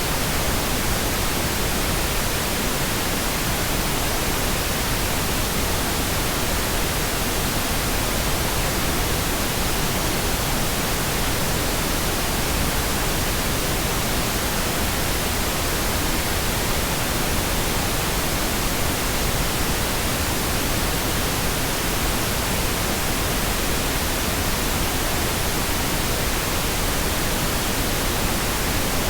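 Pink noise: a steady, even hiss spread across all pitches, unchanging in level.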